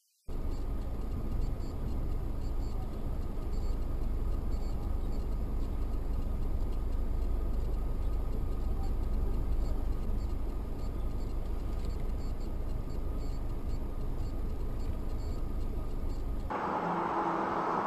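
Steady road and engine noise of a moving car as recorded by a dashcam inside the cabin, with a deep rumble. About sixteen seconds in it cuts abruptly to a different, hissier road noise.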